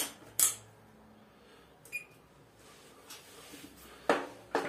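Handling of a digital multimeter while testing a water heater's heating element: two sharp clicks at the start, a short faint beep about two seconds in, then two louder knocks near the end as the probes and leads are handled over the element legs.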